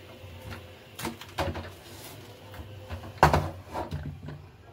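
Several sharp knocks and clunks, the loudest about three seconds in, over a low steady hum.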